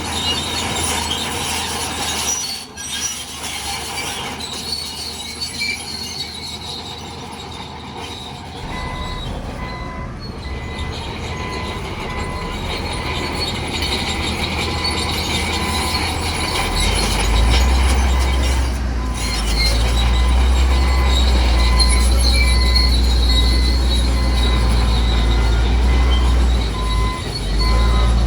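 Bulldozer working: its steel crawler tracks squeal and clank over a diesel engine that runs louder and heavier from about two-thirds of the way through. A faint, evenly pulsing beep, like a reversing alarm, runs through the second half.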